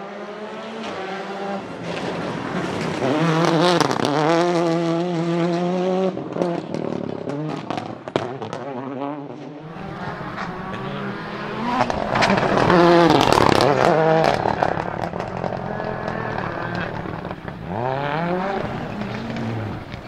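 Toyota Corolla WRC rally car's turbocharged four-cylinder engine revving hard through the gears as it passes at speed, loudest about three to four seconds in and again around twelve to fourteen seconds in. Sharp anti-lag bangs and pops crackle from the exhaust on lift-off.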